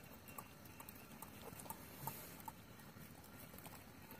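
Near silence: a faint background with a few soft, scattered ticks.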